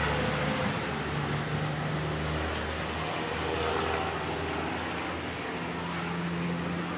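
Street traffic: a vehicle engine running with a steady low hum that shifts in pitch a few times, over a constant wash of road noise.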